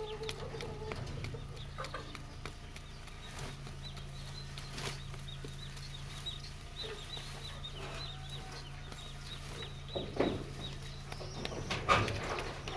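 Chickens clucking, with a run of short high chirps through the middle and a louder call near the end.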